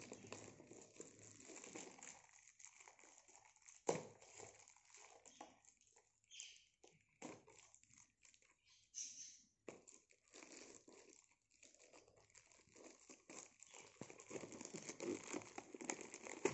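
Plastic shipping mailer crinkling and rustling in small hands as it is torn open and a packet pulled out, with one sharp click about four seconds in.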